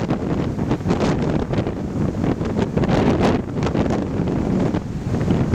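Strong wind buffeting the microphone in gusts, with waves breaking on a beach underneath.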